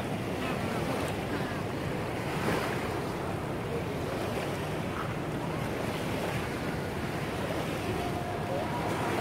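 Small waves washing onto a shallow, coarse-sand beach, a steady surf sound, with wind noise on the microphone.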